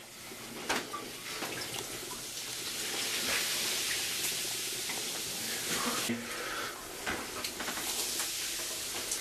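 Cola fizzing and splashing in a bathtub full of Pepsi: a steady fizzing hiss with scattered small drips and splashes as the soda is poured and moved about.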